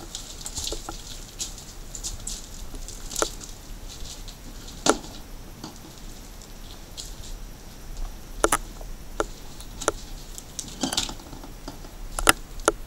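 Footsteps crunching over grit and debris on a concrete floor: irregular sharp crunches and cracks over a low hiss. The loudest come about five seconds in and near the end.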